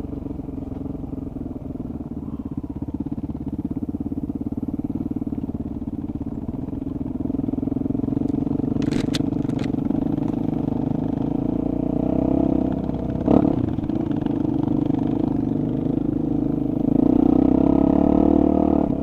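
A single-cylinder enduro motorcycle's engine running steadily at low speed, getting louder near the end as the throttle opens. A couple of sharp clicks come about nine seconds in, and a single knock about thirteen seconds in.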